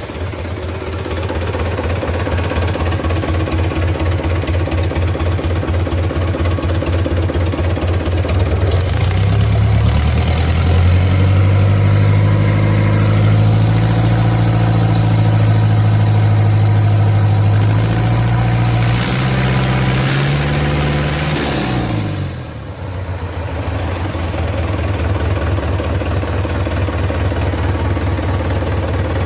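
Reconditioned Mitsubishi 4D32 four-cylinder diesel engine on a test run, idling steadily. About nine seconds in it is revved up and held at higher revs for some twelve seconds, then drops back to idle.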